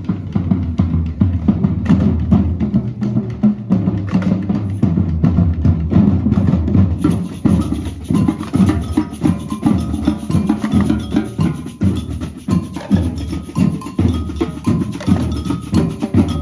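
Marching band playing: a steady drumbeat, with a melody coming in over the drums about seven seconds in.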